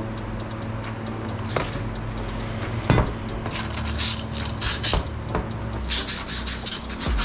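Emery cloth rubbed by hand in the bearing bore of a Ford Fiesta ST steering knuckle, cleaning it before a new wheel bearing is pressed in: quick rasping strokes, several a second, starting about halfway through. A few knocks as the knuckle is handled and set in a vise, over a steady low hum.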